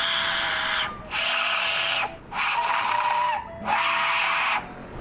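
A 3D-printed plastic skull-shaped Aztec death whistle blown in four breathy, hissing shrieks of about a second each, with short breaks between them. The sound comes out closer to rushing wind than to a human scream, which is put down to the whistle being plastic.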